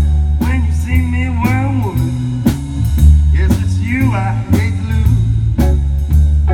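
Blues band playing live: a lead line of bending notes over a heavy bass line and drums with regular cymbal strokes.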